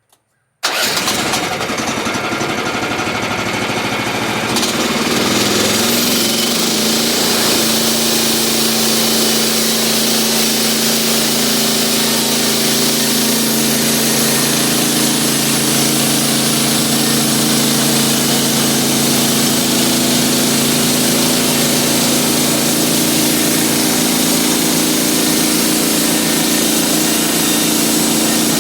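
Norwood portable sawmill's engine starting up abruptly and running steadily, speeding up about four seconds in and then holding at an even speed.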